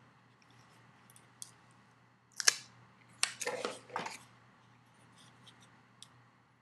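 Small plastic clicks and rustling as a BlackBerry Bold 9000 smartphone is handled: one sharp click about two and a half seconds in, then a cluster of clicks and rustles, with a few faint ticks.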